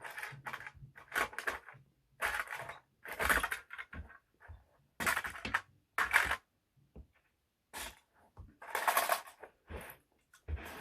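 Small toy trucks being crushed: a run of short, irregular cracking and crunching noises, about ten of them, each under half a second, with brief pauses between.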